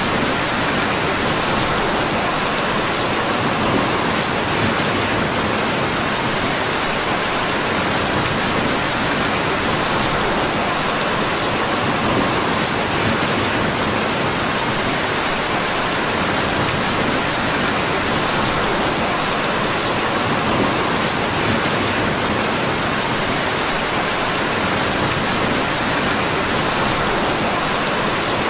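Steady rain falling: an even, unbroken hiss with a few faint ticks.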